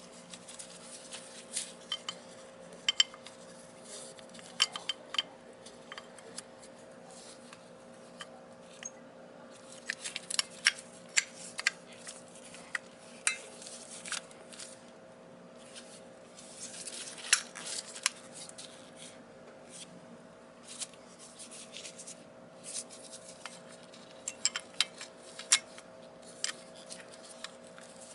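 Hand tools and small metal parts clinking and clicking irregularly during scooter brake work, over a faint steady hum.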